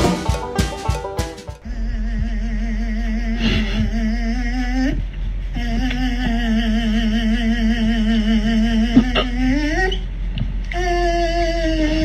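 A voice singing long, wavering held notes, each sliding upward at its end, over a steady low hum. It opens with the tail of a beat-driven music track that stops under two seconds in.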